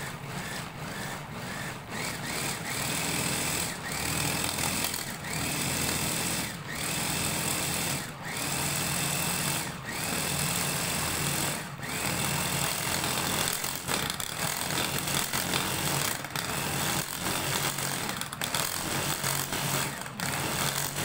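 Electric mini chopper (hachoir) motor chopping parsley in its steel bowl. For the first half it runs in short pulses, stopping briefly about every one and a half seconds and whining up in pitch as it restarts. After that it runs more continuously.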